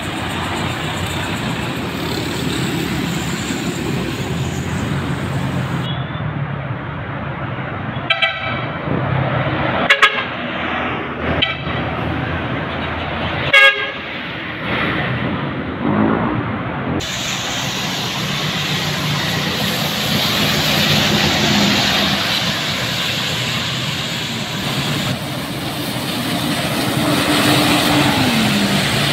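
Buses passing on a road, their engines and tyres running steadily. About a third of the way in, a bus horn gives several short multi-tone toots, with the last and sharpest one a few seconds later.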